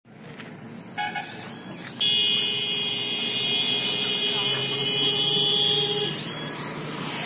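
Vehicle horns in road traffic: a short double toot about a second in, then one long steady horn blast held for about four seconds that cuts off, over passing traffic noise.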